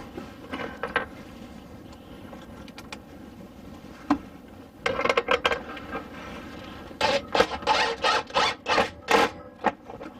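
Irregular rubbing and scraping of hard parts being handled and shifted against wood, in short bursts that come thickest in the last few seconds.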